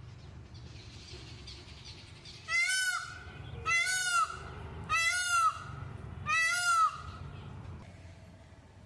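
A peacock (Indian peafowl) calling four times in a row, loud, high, honking cries each about half a second long and a little over a second apart.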